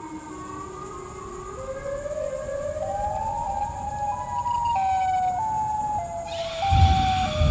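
Siren Head horror sound effect: an eerie siren wail that climbs slowly in pitch in steps, then steps back down, growing louder, with a deep rumble coming in near the end.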